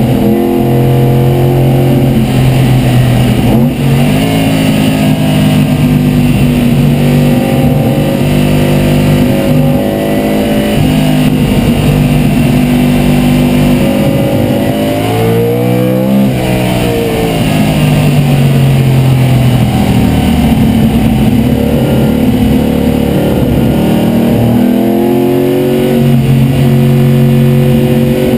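De Tomaso Pantera race car's V8 engine under hard load, heard from inside the cockpit, its pitch holding high and then dipping and climbing again with gear changes and throttle lifts, around four seconds in, midway through, and near the end.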